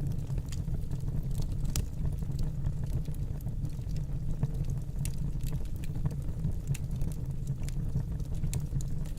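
Wood fire burning in a fireplace: a steady low rumble of the flames with irregular sharp crackles and pops, the loudest about two seconds and five seconds in.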